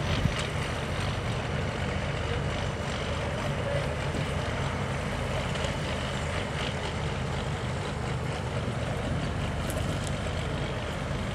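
Engine of a vintage John Deere two-cylinder tractor running steadily under load as it pulls a weight-transfer sled.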